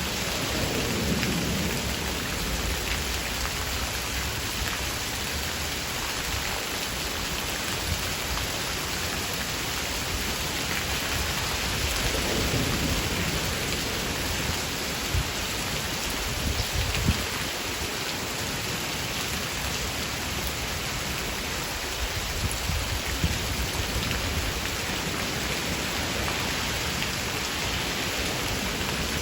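Steady rain shower, an even hiss of rain falling on surfaces, with a few louder drips. Low rumbles of thunder swell up about a second in and again around twelve seconds.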